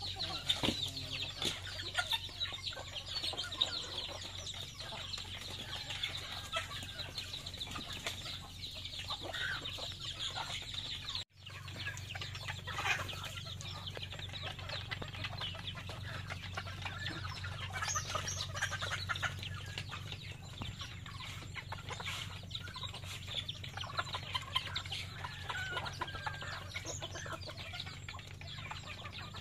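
A flock of chickens and chicks clucking while they peck at feed around a plate, with many small pecking clicks. The sound breaks off for an instant about eleven seconds in.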